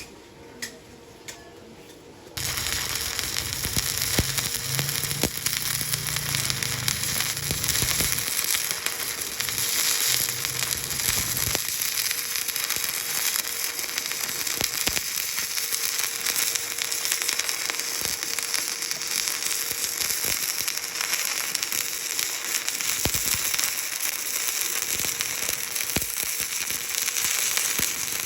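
Stick (shielded metal arc) welding: a few faint clicks, then about two seconds in the arc catches and crackles and sizzles steadily.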